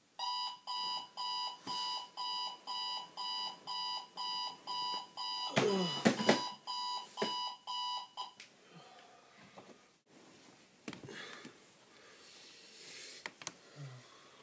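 Digital bedside alarm clock beeping, about three beeps a second, cut off suddenly about eight seconds in when it is pressed to switch it off. Louder knocks and rustling of movement about six seconds in, then quieter shuffling.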